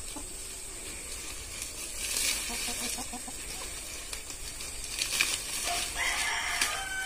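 Hens clucking, with a longer call a little before the end, over a few brief rustling snips of a hand sickle cutting spinach stalks.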